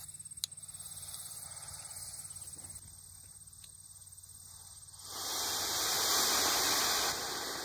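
Two sharp clicks, then about five seconds in homemade rocket motors ignite and burn with a steady rushing hiss of exhaust.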